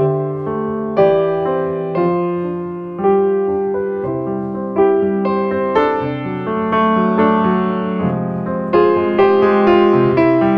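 Background music: a gentle piano piece, notes struck and left to fade, several notes sounding together.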